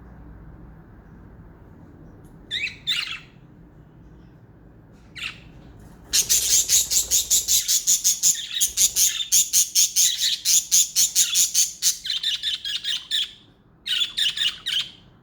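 Pet budgerigars calling: a few short chirps, then a long run of rapid, repeated sharp chirps at about five a second, and another short burst of chirps near the end.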